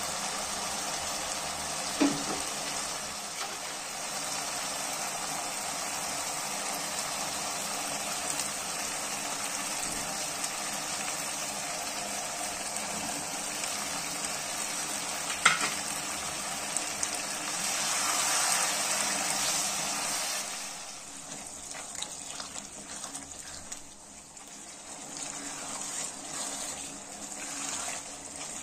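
Mutton keema masala frying in oil in a wok on high flame, a steady sizzle broken by a sharp knock about two seconds in and another about fifteen seconds in. After about twenty seconds the sizzle drops away, leaving quieter stirring with a wooden spatula.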